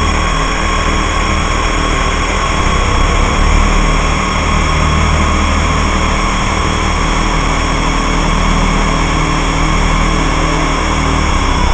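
Electronic drone-and-noise music from DIY synthesizers with delay and reverb: a steady deep rumble under a held mid-pitched tone and layered sustained tones, with a noisy hiss over them.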